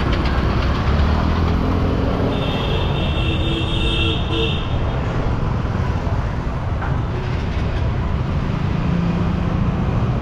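Busy city street traffic: motor scooters and motorbikes running past close by. A horn sounds for about two seconds a couple of seconds in.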